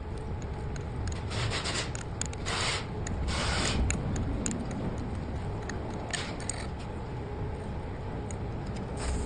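Metal scraping and rubbing in uneven strokes, the longest and loudest about three and a half seconds in, from working a stuck bolt loose.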